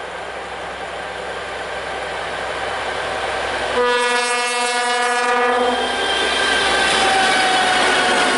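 M62 diesel locomotive, with its two-stroke V12 engine, growing louder as it approaches at the head of a freight train. About four seconds in it gives a steady horn blast lasting roughly a second and a half. The locomotive then runs close past, and the pitch of its whine slowly falls.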